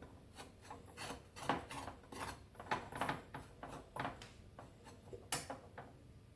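A spoon scraping and knocking in a pan as a jaggery, roasted turmeric and dry ginger powder mixture is stirred and pressed together, with a run of irregular short scrapes and a sharper clink about five seconds in.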